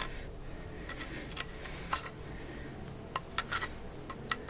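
Scattered light clicks and scrapes of a metal hand tool prodding and turning over dry bones, with a quick run of clicks about three and a half seconds in.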